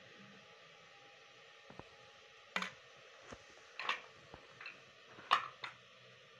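A spoon lightly tapping and scraping yogurt onto boiled black chickpeas in a glass bowl: about half a dozen short, irregular clicks and soft squishy scrapes, the loudest a little after five seconds in.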